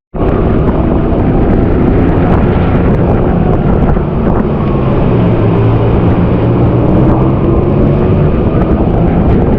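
Motorboat engine running steadily at speed, with wind buffeting the microphone and water noise.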